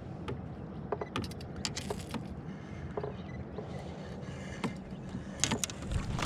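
Fishing rods and reels being handled on a kayak: scattered light clicks and knocks of the gear over a steady low rumble.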